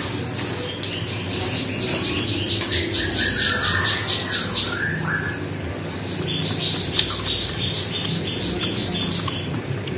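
A songbird singing: a long trill of quick, evenly repeated high chirps, about five a second, then after a short break a second, slower run of chirps.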